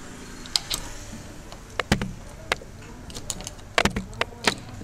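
A door and its latch being handled: a string of sharp, irregular clicks and knocks, with heavier knocks about two seconds in and a quick cluster near the end.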